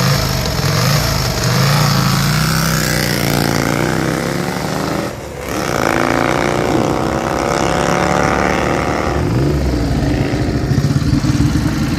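Vintage motorcycle engines running and revving, the pitch rising and falling several times, with a brief drop in sound about five seconds in.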